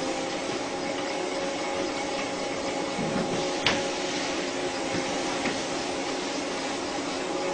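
Steady mechanical hum with a faint constant whine, broken once about halfway through by a sharp click.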